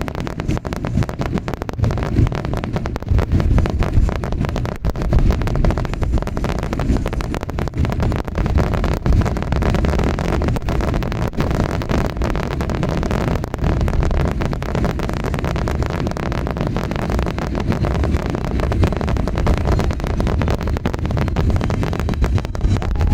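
Fireworks bursting in a continuous barrage: dense crackling over a heavy low rumble of booms.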